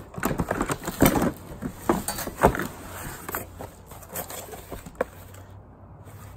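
Rummaging through a cardboard box of packed kitchen items: plastic bags and bubble wrap crinkling while objects knock and clatter, busiest in the first few seconds and then tapering off.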